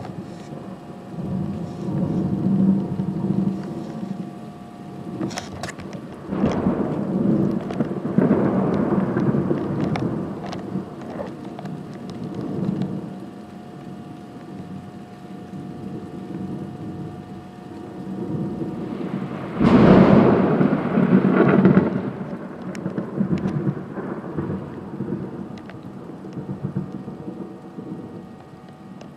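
Thunder rolling during a thunderstorm: long, low rumbles that swell and fade, with a sharper, loudest crack about twenty seconds in that rumbles on for a couple of seconds. Rain hisses steadily underneath.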